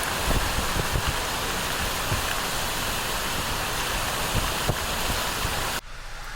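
Steady rushing noise of flash-flood water, with wind buffeting the microphone in irregular low thumps. The sound drops sharply a little before the end.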